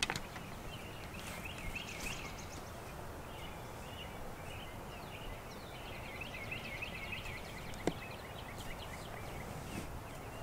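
Small birds twittering in quick, repeated chirps over a steady outdoor background hiss, with a single brief click about eight seconds in.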